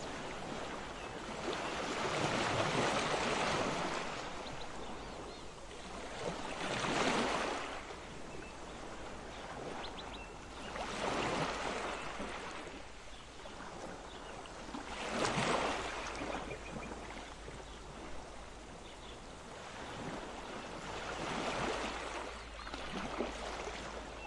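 Ocean waves washing in, each swell rising and falling away about every four seconds.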